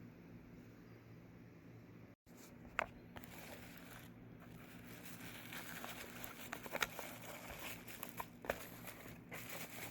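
Packaging crinkling as it is handled and opened, with a few sharp clicks.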